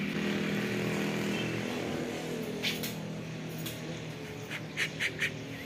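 A small electric motor running with a steady hum, with a few sharp clicks about halfway and a quick cluster of clicks near the end.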